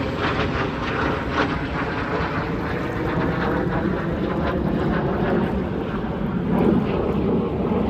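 A fixed-wing aircraft flying past, its engines a steady loud rumble with some crackle in the first second or two.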